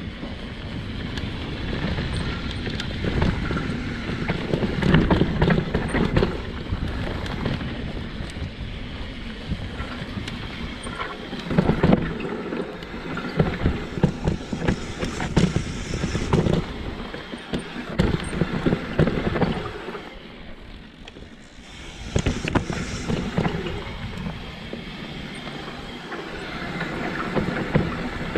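Mountain bike descending a dirt downhill trail: tyres rolling, the bike rattling and knocking over bumps, with wind on the microphone. The noise drops for a couple of seconds about two-thirds of the way through.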